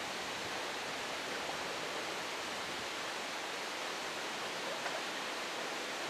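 Steady, even hiss of outdoor background noise, with no bird calls.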